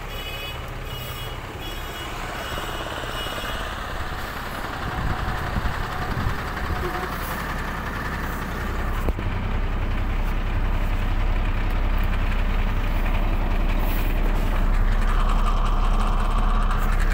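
A truck engine idling with a steady low drone that grows louder about nine seconds in. A reversing alarm beeps repeatedly over the first few seconds, and there is handling noise of knocks and rustling midway.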